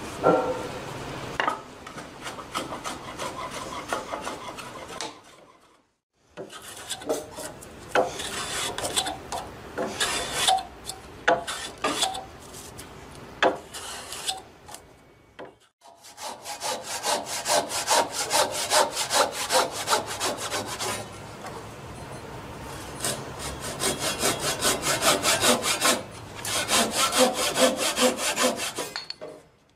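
Japanese wooden hand plane (kanna) shaving a timber joint in quick, short, repeated strokes, each a dry rasp of blade on wood. The planing stops twice for a moment.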